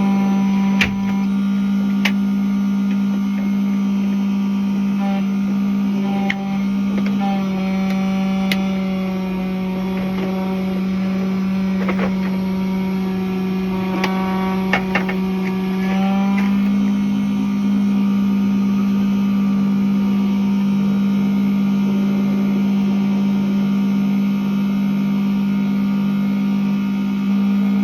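Electric key-cutting machine running steadily with a low hum while cutting a car key blade. Its pitch dips slightly from about 7 to 16 seconds in and then comes back up, with a few light clicks.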